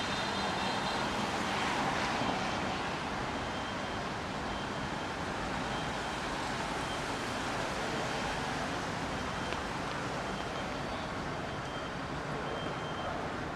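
Steady street traffic noise: a constant even hiss of passing vehicles, with no distinct events standing out.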